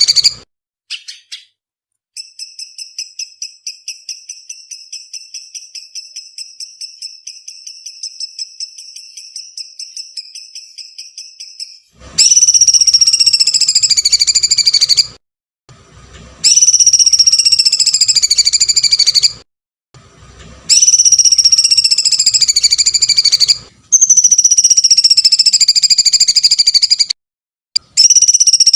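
Songbird training recording: a fast, even rattling trill for about ten seconds, then a run of loud, shrill, scream-like calls, each about three seconds long and falling slightly in pitch, repeated four times with short gaps and starting a fifth near the end.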